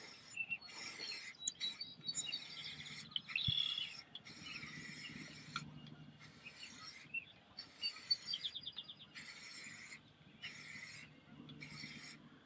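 Aerosol spray-paint can, worked with a trigger handle, hissing in a series of short bursts of under a second to about a second each, with brief stops between them as the trigger is released between strokes. A bird chirps now and then.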